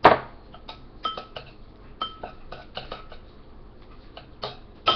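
A metal spoon clinking and knocking against a dish in a string of irregular strikes, each with a short ring, the loudest right at the start and another just before the end, while salt is spooned in.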